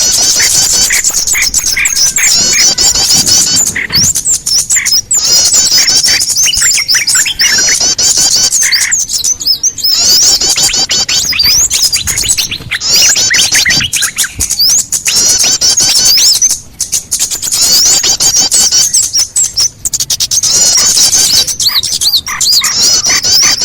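Dense chorus of many small birds chirping and trilling rapidly and without pause, a bird-lure recording used to draw small birds in for trapping.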